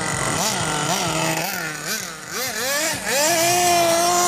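Radio-controlled buggy's motor revving up and down with the throttle in quick swings, then climbing about three seconds in to a steady, higher pitch held at speed.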